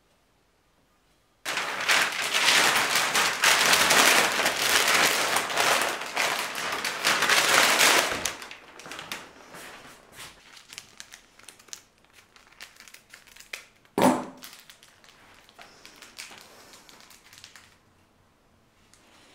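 Packaging crinkling and crumpling in the hands, dense and loud for about six seconds, then sparser crinkles and rustles. One sharp knock about fourteen seconds in.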